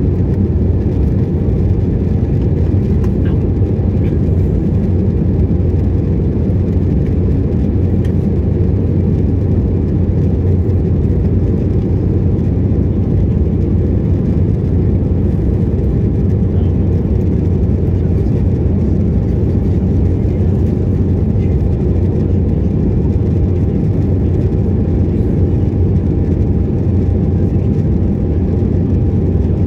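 Aircraft engines and airflow droning steadily: a heavy low rumble with a faint steady whine above it.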